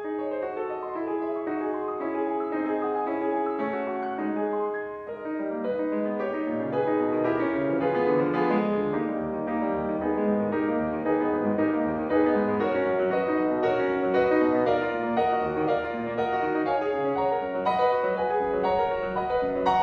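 Piano music, a continuous flowing run of notes.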